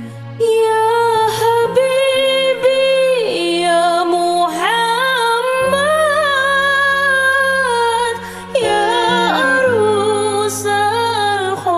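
Sholawat devotional singing: a solo voice singing long melodic phrases that slide between notes, over a steady low sustained accompaniment that shifts pitch twice.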